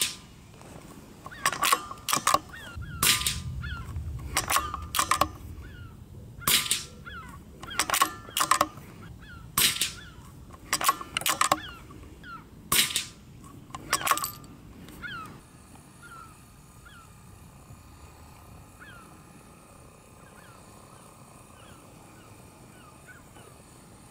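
Suppressed .22 LR rimfire rifle shots, about fifteen sharp reports in an irregular string, some in close pairs, over the first fifteen seconds. Small birds chirp faintly between the shots and after the shooting stops.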